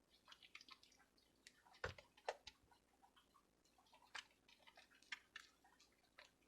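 Faint wet squishing and crackling of soap lather being worked between the hands, with scattered small clicks.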